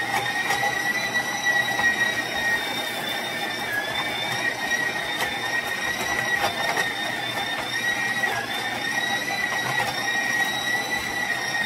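Stand mixer motor running at full speed, driving a metal grain mill attachment that grinds dry mesquite pods into flour: a steady high whine with scattered clicks from pods being crushed, the pitch dipping briefly a couple of times.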